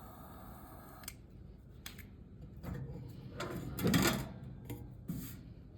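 Toaster oven parts being handled: scattered clicks and knocks, with a louder rattling clatter about four seconds in and another short one near the end.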